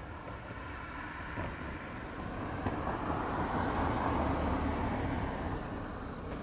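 A vehicle passing by out of sight, its noise swelling to a peak about four seconds in and then fading away.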